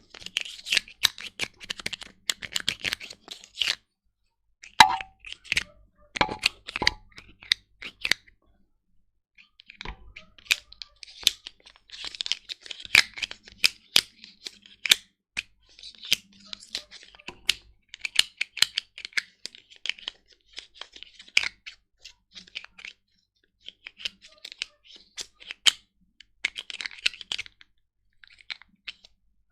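Brush scrubbing a damp computer keyboard: bristles scratch in quick strokes over and between the keys, with many sharp clicks and a few short pauses.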